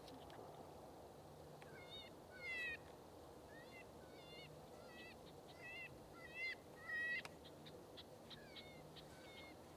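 A long series of short, high-pitched squawking calls, one after another in irregular bunches, starting about two seconds in, over a faint steady hum.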